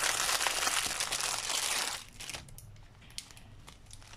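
Clear plastic bag crinkling loudly as it is pulled off a set of small sequinned Christmas stockings, for about two seconds; then it drops to light rustling with a few soft clicks as the stockings are handled.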